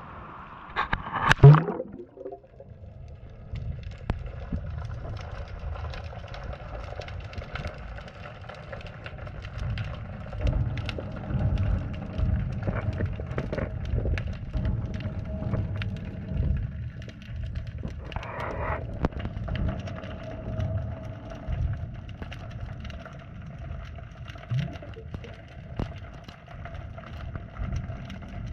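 Underwater sound picked up by a GoPro in its housing lowered into the water: a continuous muffled low rumble with many scattered clicks and knocks, and one loud knock about a second in.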